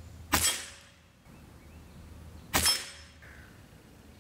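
Two shots from a Seneca Dragonfly MK2 multi-pump air rifle, about two seconds apart: each is a sharp crack with a quick second knock right after it, then a short ring-out.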